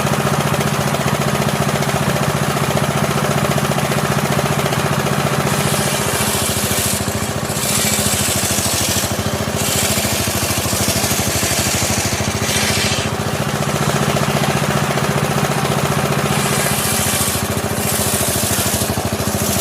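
Engine-driven sawmill saw running steadily, its blade cutting through a teak stump in several stretches of high hissing, from about five seconds in to thirteen and again near the end, with the machine's hum between cuts.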